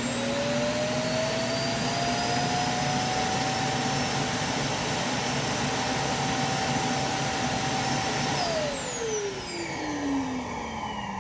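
Roomba i7+ charging base's built-in vacuum running as it automatically empties the robot's bin: a loud motor whine at a steady pitch that winds down with falling pitch over the last few seconds.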